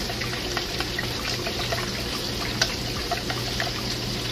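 Thin gravy bubbling at a simmer in a skillet: a steady bubbling hiss with many small pops, over a steady low hum.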